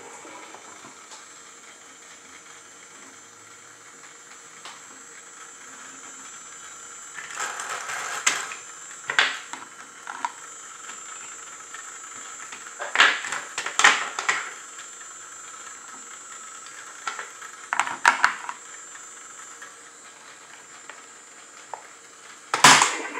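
Plastic toy train set pieces being handled, with scattered clicks and clatters of plastic on plastic track in small clusters over a steady background hiss. A sharp knock near the end is the loudest.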